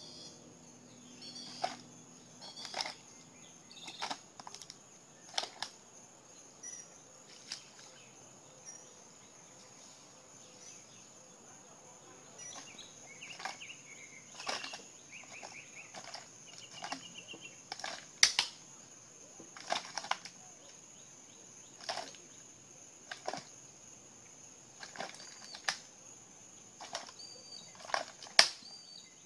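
Alligator crunching prey in its jaws: sharp, irregular cracks every second or two, the loudest about two-thirds of the way through and near the end. Birds chirp faintly in the middle.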